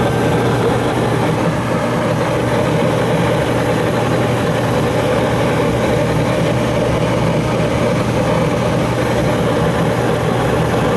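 Gas furnace running with its burners lit: a steady, even rush with a low hum. It is burning well now that the gas pressure at its Honeywell valve has been turned down from too high.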